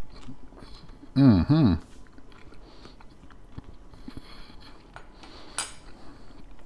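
A man chewing a bite of roast chicken breast and skin, with a short two-part hummed 'mm-mm' about a second in. Near the end, a metal fork is set down on a wooden cutting board with a sharp click.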